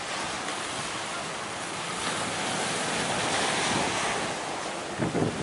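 Sea waves and surf washing, swelling to a peak through the middle and easing off, with wind buffeting the microphone in a few low thumps near the end.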